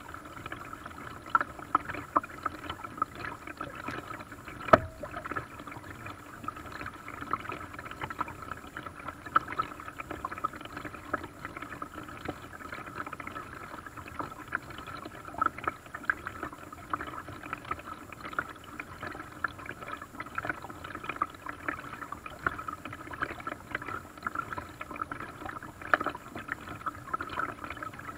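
Paddling a small boat on a lake: water splashing and lapping around the paddle blade and hull, with many small irregular drips and splashes. There is one sharp knock about five seconds in.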